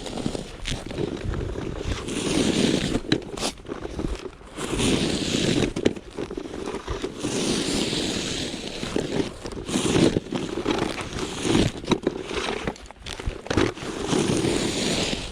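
Snow shovel scraping and crunching through packed snow in repeated strokes, about one every two seconds.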